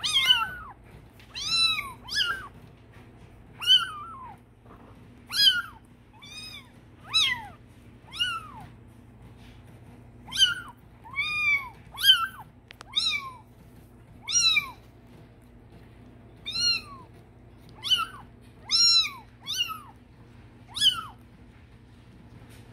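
Bengal kittens mewing: about twenty short, high mews at irregular intervals of roughly a second, each rising and then falling in pitch.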